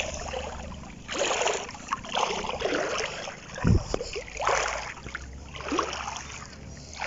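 Legs wading through shallow seawater, sloshing and splashing in a stride rhythm about once a second, with one dull thump about halfway through.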